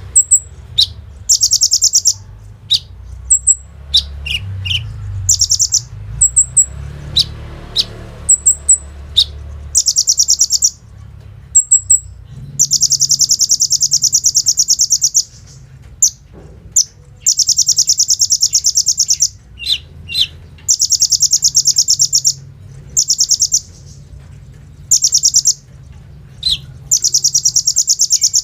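Kolibri ninja sunbird singing: repeated fast, high rattling trills, each one to two and a half seconds long, broken up by short sharp chirps and quick falling notes. The machine-gun-like rattles are the 'bren' phrases prized in this bird's song.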